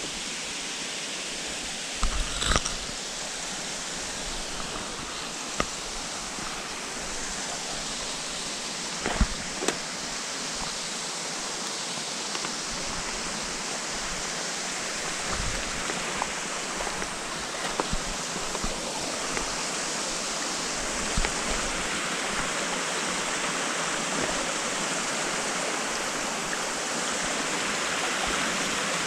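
Steady rushing of a stream and waterfall, a hiss that grows slowly louder, with a few short knocks scattered through it.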